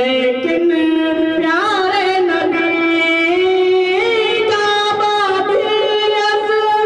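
Solo male voice singing a naat into a handheld microphone, holding long notes with ornamented turns and glides between them.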